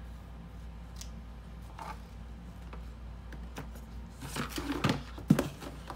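Makeup palettes and their packaging being handled: a few faint taps, then about four seconds in a flurry of rustling and sharp clicks, with one loud knock near the end. A steady low hum runs underneath.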